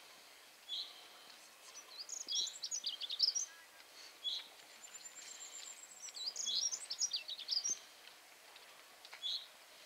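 Songbirds singing: quick, varied high whistled notes in two phrases of about a second and a half each, separated by short single calls, over faint outdoor background hiss.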